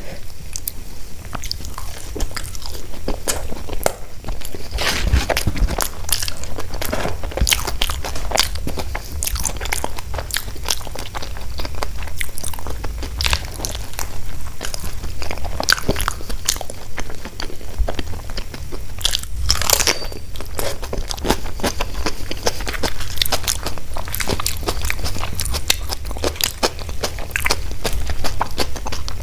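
Close-miked eating sounds: crunchy bites and chewing, with dense small clicks and crackles of food and mouth throughout.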